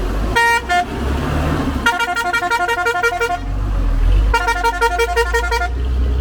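Vehicle horn honking: one short toot, then two rapid runs of short, quick beeps, each lasting about a second and a half, over a low engine rumble.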